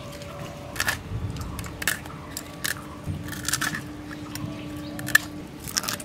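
A rohu fish being scaled against the curved blade of a boti: sharp, irregular scraping strokes, about one a second, as the scales are rasped off.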